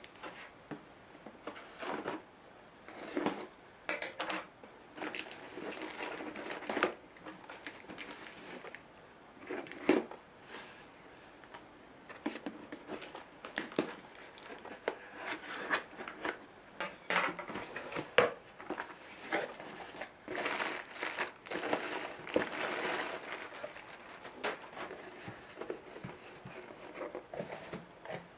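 A cardboard shipping box being opened by hand: cardboard and packing rustling and crinkling, with tearing and a few sharp knocks.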